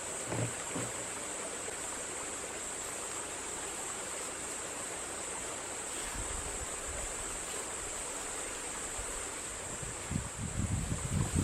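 Steady outdoor rushing noise, like running water or wind, with a constant high hiss over it. A few soft knocks right at the start, and a low rumble rising near the end.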